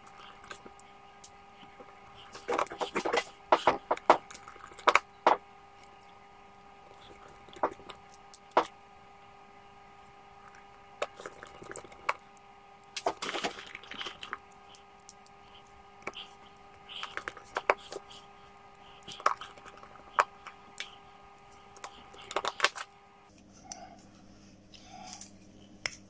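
Small precision screwdriver and fingers clicking and tapping on a smartphone's plastic mid-frame while its screws are driven back in, in scattered clusters of sharp clicks. A faint steady hum sits beneath and cuts off near the end.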